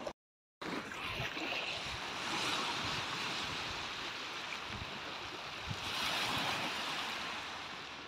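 Small waves washing onto a pebble beach: a steady hiss of surf that swells twice. The sound cuts out for half a second just after the start.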